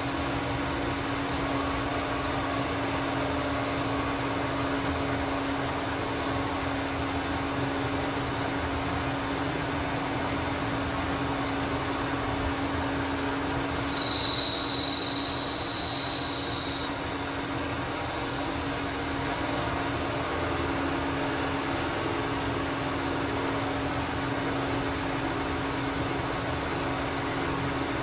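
Bridgeport vertical milling machine running on a variable frequency drive, a steady hum, as the cutter is fed around a hole to shape the part. About halfway a high squeal sounds for about three seconds.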